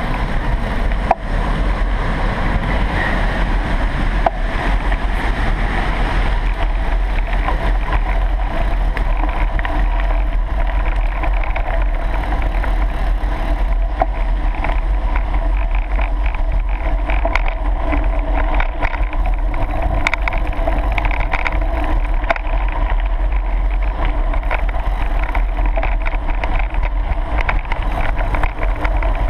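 Action-camera audio from a mountain bike ride over a rough grass and gravel track: steady wind rumble on the microphone with constant rattling and clicks from the bumps.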